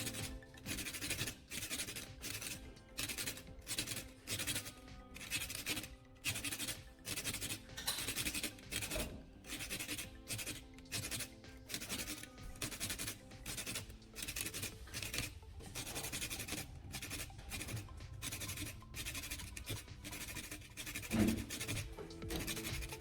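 Rhythmic scraping strokes, about two a second, over quiet background music, with one louder knock near the end.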